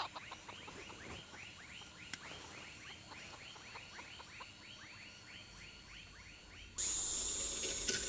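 A small night animal chirping steadily, about three short arched chirps a second. Shortly before the end this cuts off suddenly and gives way to a louder steady hiss with a low rumble.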